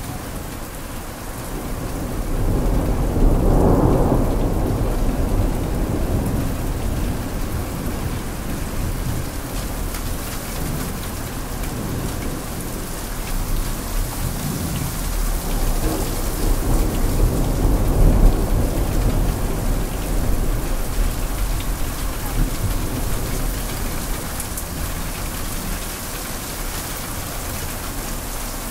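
Thunderstorm: heavy rain falling steadily, with thunder rumbling over it. One rumble swells about three seconds in, and a second, longer one builds to its loudest about two-thirds of the way through.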